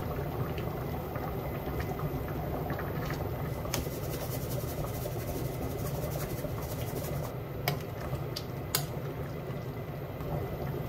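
Tomato and vegetable stew boiling in a stainless steel pot, a steady bubbling, with a few light clicks about four, eight and nine seconds in.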